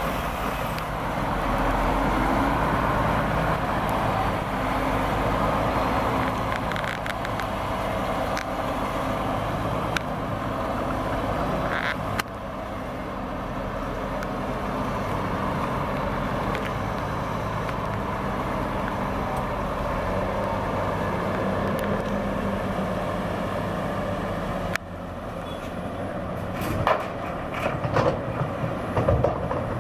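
Diesel engines running: a MAN truck with a Meiller tipper semi-trailer pulls through, then a Caterpillar hydraulic excavator works beside it, loading soil into the trailer. Near the end there are several heavy thuds as bucketloads of soil drop into the trailer bed.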